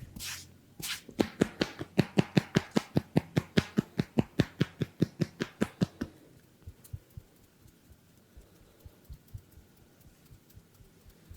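Massage percussion: hands tapping rapidly and evenly on a person's body, about six strikes a second, stopping abruptly about six seconds in; only faint light taps follow.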